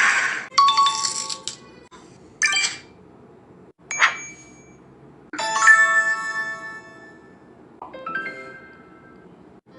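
A run of about five separate game-show correct-answer sound effects: short chimes and dings, each ringing out and fading before the next. The last of a noisy effect dies away at the very start.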